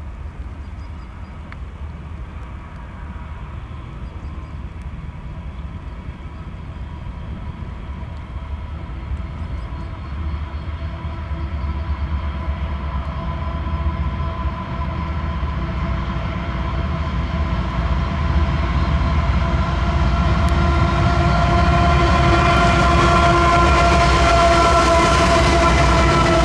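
GE ES44AC diesel-electric locomotive, with its 12-cylinder GEVO diesel engine, leading a freight train as it approaches and passes. A low rumble grows steadily louder, and a steady pitched engine note comes up out of it about halfway through, loudest near the end as the locomotive goes by.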